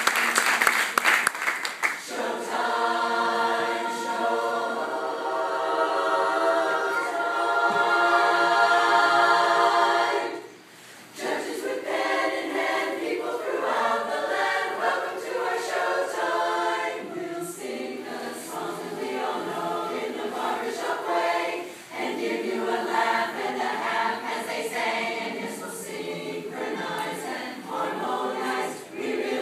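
Applause dies away in the first two seconds as a women's barbershop chorus starts singing a cappella. A long held chord gives way to a short break about ten seconds in, after which the singing goes on in shorter, more rhythmic phrases.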